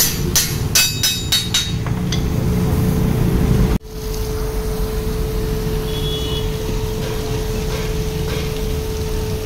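Car radiator being flushed with water from a hose, the water running through the core and splashing out onto a concrete floor, under a steady hum. A run of sharp clicks sounds in the first two seconds, before a cut about four seconds in.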